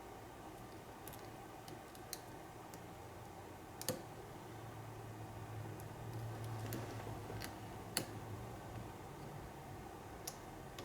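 Small, irregular metallic clicks from a lock pick and tension wrench working the pin stack of an American Lock padlock during single-pin picking. Two sharper clicks stand out, about four and eight seconds in.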